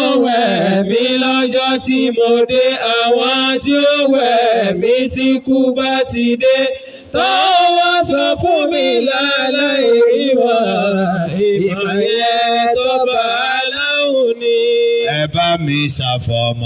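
Men chanting a melodic religious song into microphones, the lead voice holding long, wavering notes; a lower voice comes in near the end.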